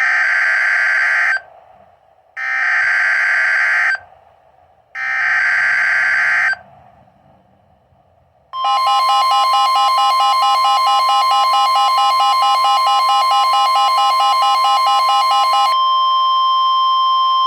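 Emergency Alert System signal on NOAA Weather Radio: three short bursts of screechy SAME data header, followed by a long, loud attention tone near 1 kHz that runs for about nine seconds. It marks the start of a new severe thunderstorm warning broadcast.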